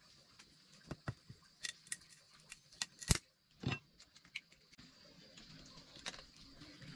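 Scattered light clicks and knocks of objects being handled, with one louder knock a little after three seconds in, over a faint steady high hiss.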